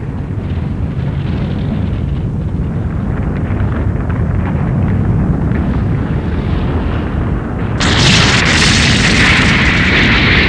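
Animated earthquake sound effect: a continuous deep rumble of shaking ground. About eight seconds in, a louder crashing, tearing noise joins it as the earth breaks open.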